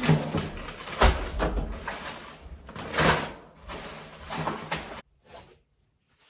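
A door and a delivery being handled: a run of knocks, thumps and rustling, loudest about a second in and again about three seconds in. It cuts off abruptly about five seconds in, leaving near silence.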